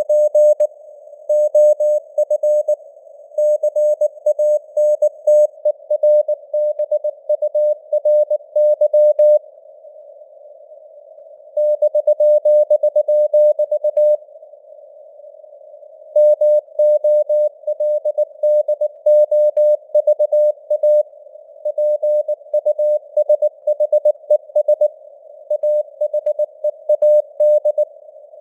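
Morse code (CW) sent at 19 words per minute: a single mid-pitched tone keyed on and off in dots and dashes over a narrow band of hiss, simulating a received amateur radio signal with band noise. The keying stops for about two seconds around ten seconds in, then resumes.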